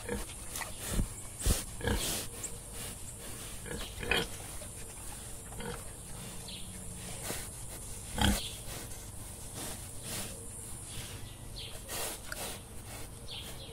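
Wild boar foraging on the ground: a scattering of short grunts and rooting noises, the loudest about eight seconds in.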